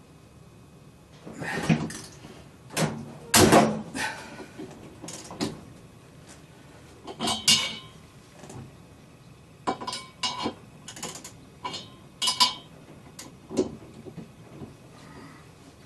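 Irregular knocks, clatters and light metallic clinks of parts and tools being handled, with no steady rhythm. The heaviest clatters come about two and three and a half seconds in, and a quicker run of ringing clinks comes later.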